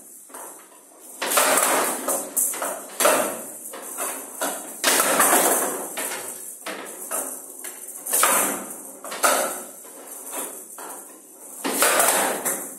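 Showdown rally: the ball's metal pellets rattling as it rolls and bounces across the wooden table, with repeated sharp knocks of the bats striking it and the ball hitting the table's wooden sides.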